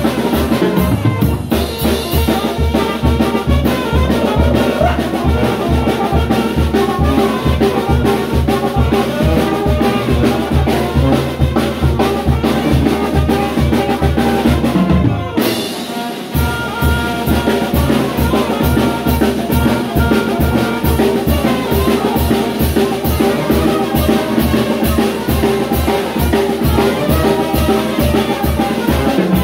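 Live Mexican banda music: sousaphone, saxophone and brass playing over a steady drum beat. The band breaks off briefly about halfway through and then comes back in.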